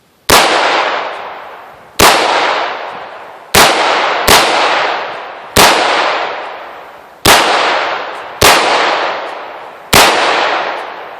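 Smith & Wesson M&P15 Sport II semi-automatic rifle firing eight single shots of .223 hollow-point ammunition at uneven intervals, each sharp crack trailing off in a long echo lasting over a second.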